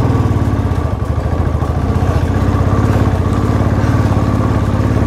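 Royal Enfield 350 cc single-cylinder motorcycle engine running steadily at low speed, heard from on board, its exhaust beat a fast, even pulse.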